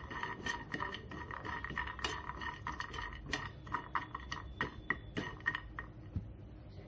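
Metal spoon clicking and scraping against a nonstick frying pan as walnut halves are stirred and tossed while they fry lightly in a little oil. The clatter is quick and irregular, and it eases off near the end.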